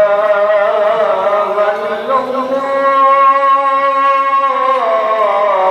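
Islamic devotional chanting by a single voice, holding long melodic notes that change pitch every couple of seconds.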